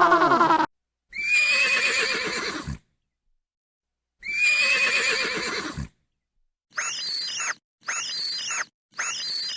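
A horse whinnies twice, the same quavering, falling neigh each time, each lasting under two seconds. Then a series of short, high chirping calls begins, about one a second.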